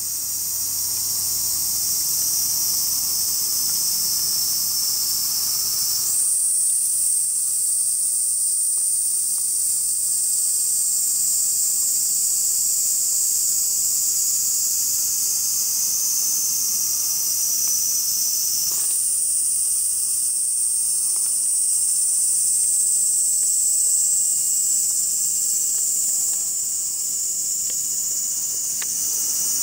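Summer cicadas shrilling steadily in a high, hissing chorus. A fresh song sets in about six seconds in and again about nineteen seconds in, each one sliding slowly lower in pitch.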